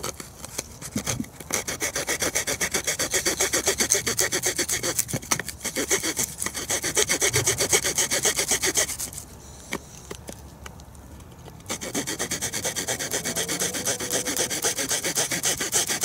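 Small folding pocket-knife saw blade cutting a thin wooden slat in quick, rapid back-and-forth strokes, with a pause of about two or three seconds just past the middle before the sawing resumes. The blade's teeth are ground to little chisel edges rather than sharpened points.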